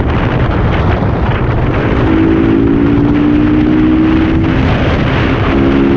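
Yamaha R15 v2.0's single-cylinder engine running under way through its K&N-filtered intake, its note climbing in the middle, dropping away briefly and picking up again near the end. Heavy wind rush on the microphone covers much of it.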